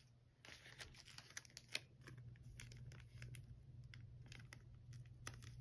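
Faint rustling and crinkling of cellophane packaging and paper craft pieces handled by hand, in scattered small crackles and clicks over a faint steady low hum.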